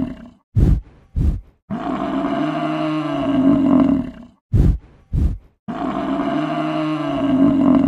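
American bison bellowing: a long, low pitched roar of about two and a half seconds, then two short, loud bursts, with the pattern repeating about every four seconds.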